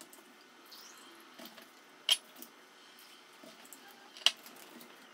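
Plastic centrifuge tubes and their caps being handled: two sharp clicks about two seconds apart, with faint handling noise between them.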